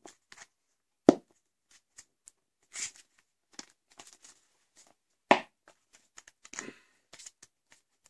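Collapsible Tupperware bowl being pulled open, its folding rings popping out one after another. There are a few sharp snaps, the loudest about five seconds in, with light plastic crinkling between them.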